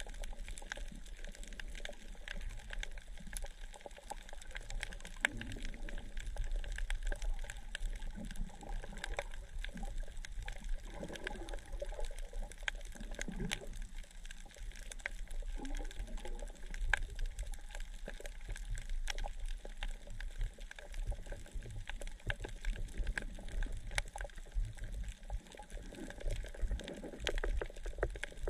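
Humpback whale song heard underwater: several calls gliding up and down in pitch, most of them in the middle stretch, over a constant crackle and water noise.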